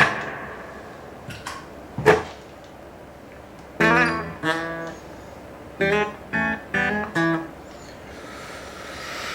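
Gibson Les Paul electric guitar played through an Electro-Harmonix Oceans 11 reverb pedal. It plays separate strummed chords, one with a wavering pitch about four seconds in, then four short stabbed chords. Near the end a hazy wash of reverb swells up.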